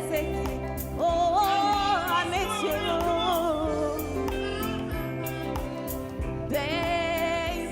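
A woman singing an R&B song live, held notes with vibrato over band accompaniment, with a short break in the vocal line about four seconds in.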